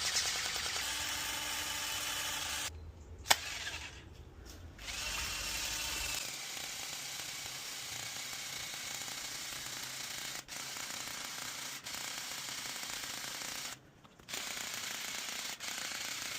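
Automatic water pistol's small electric motor and pump running with a fast, steady buzzing rattle. It cuts out briefly three times, and there is one sharp click about three seconds in.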